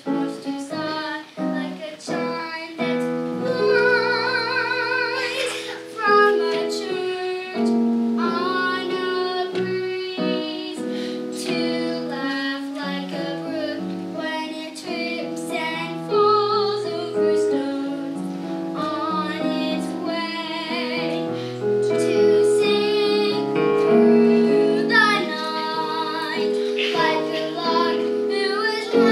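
Young girl singing a solo song over instrumental accompaniment, with a wavering vibrato on a long held note about four seconds in.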